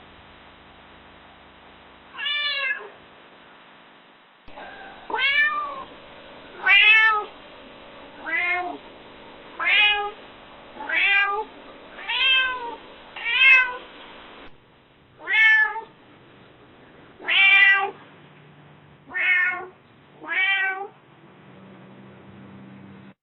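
Domestic cat meowing: about a dozen short meows, each rising then falling in pitch. There is one meow early on, then a quick run of seven about every second and a half, then four more spaced a little wider.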